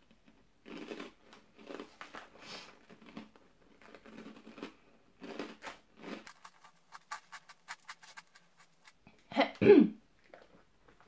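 A hard chocolate-soaked zwieback rusk being bitten and chewed with the mouth closed. A run of dry crunches is followed by quicker, finer crackling clicks. Near the end comes a short, louder sound from the mouth or throat.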